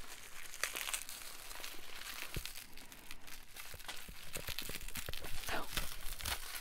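Packing wrap crinkled and pulled open by hand to free individually wrapped pieces of jewelry: a continuous crinkling with many small crackles and tearing sounds, a little louder near the end.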